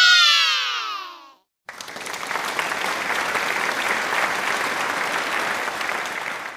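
Applause sound effect: a crowd clapping steadily for about five seconds, cutting off near the end. Just before it, a short pitched sound effect slides down in pitch and fades out.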